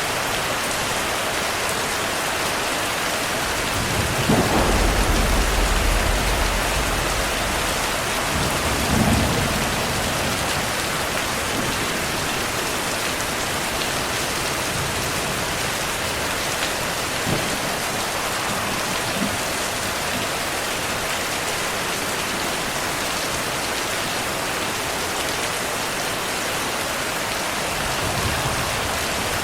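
Steady rain with rolling thunder: a long low rumble starting about four seconds in, another shorter roll around nine seconds, and a faint one near the end.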